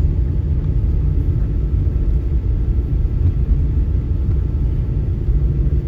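Car running along the road, heard from inside the cabin: a steady low rumble of engine and tyre noise.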